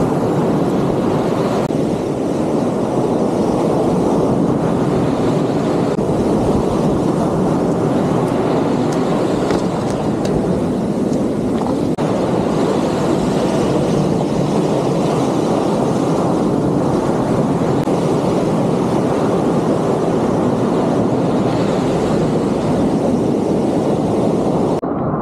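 Ocean surf breaking and washing up the sand at the water's edge, a loud steady rush that swells and eases.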